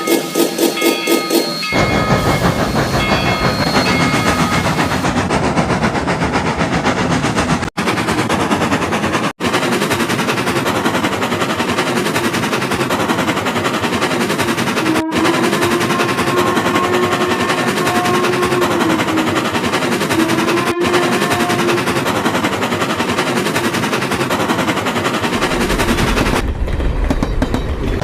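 Train sound effect of a train pulling away: a dense, fast, rattling chug, with a held, slightly wavering whistle-like tone about halfway through. A short rhythmic musical phrase ends about two seconds in, and the train sound cuts out briefly twice around eight and nine seconds in.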